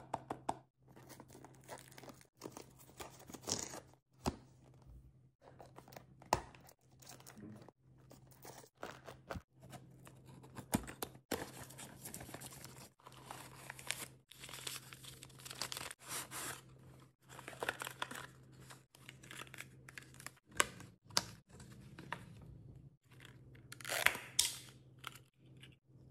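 Cardboard toy box and paper wrapping being opened by hand: irregular bursts of tearing, rustling and crinkling, some sharper crunches among them, over a faint steady low hum.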